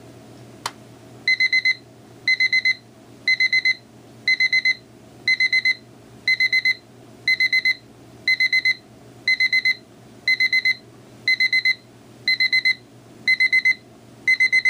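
Rhythm Nightbright 861 quartz alarm clock's beep alarm going off: groups of four quick, high-pitched electronic beeps, repeating about once a second. A single sharp click comes just before the beeping starts.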